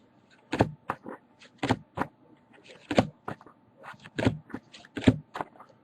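Trading cards being handled and flipped through: a dozen or so short, sharp clicks and snaps at an irregular pace.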